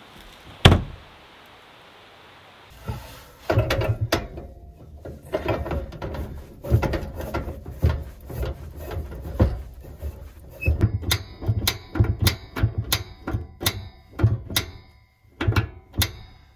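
A sharp bang about half a second in, then an irregular run of knocks, thumps and clatters of things being handled and set down in a small enclosed space.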